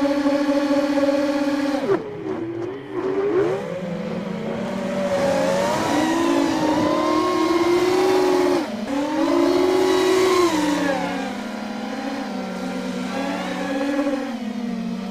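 Racing quadcopter's brushless motors and propellers whining. The whine holds a steady pitch, drops suddenly about two seconds in, then rises and falls repeatedly as the throttle changes.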